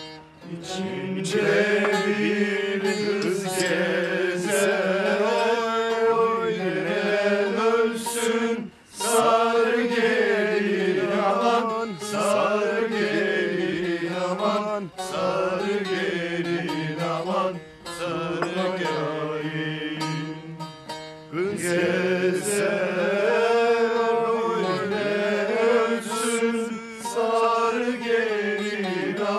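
Turkish folk song performed live by village musicians: a wavering, ornamented melody over a steady drone, breaking off briefly about 9, 18 and 21 seconds in.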